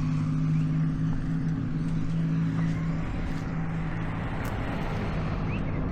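An engine idling steadily, its low hum fading out about three seconds in, over a background hiss of traffic.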